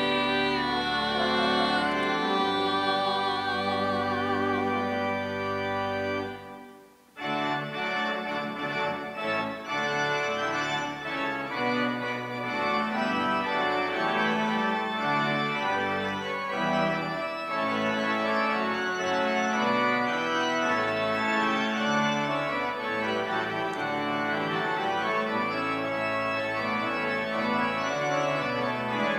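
Church organ playing sustained chords. A wavering held chord dies away about six and a half seconds in, and after a brief pause the organ starts again with a steady flow of chords.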